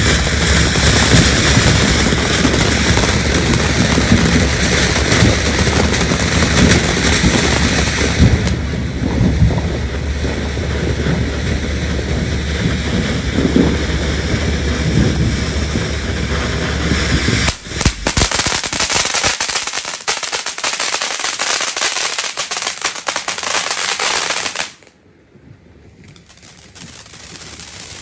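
Fireworks going off close by: a long, dense crackling hiss, then a rapid run of sharp pops like a firecracker string that stops suddenly near the end.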